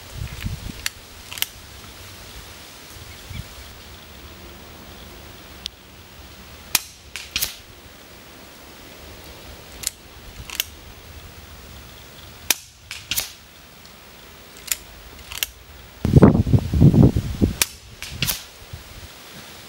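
Daystate Red Wolf HP 5.5 mm PCP air rifle firing a group of shots: about six sharp cracks, each quickly followed by a second click. Near the end comes a louder low rumbling burst.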